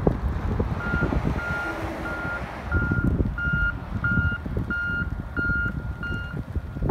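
Backup alarm on a snow-removal vehicle, beeping steadily at about one and a half beeps a second. It starts about a second in and grows louder about halfway through. Wind buffets the microphone underneath.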